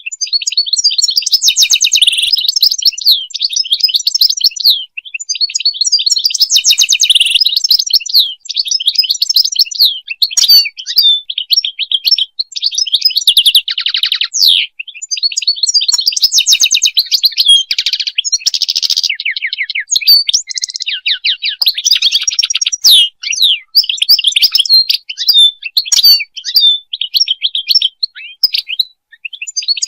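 European goldfinch singing: a long, fast, twittering song of rapid liquid trills and chirps, with brief pauses between phrases.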